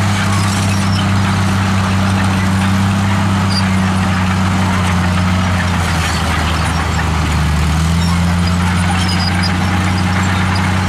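Komatsu D63E crawler bulldozer's diesel engine running steadily as the blade pushes dirt and rock, the engine note dipping in pitch for a few seconds midway and picking back up.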